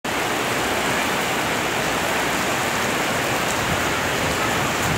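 Steady rain falling and pattering on hard surfaces.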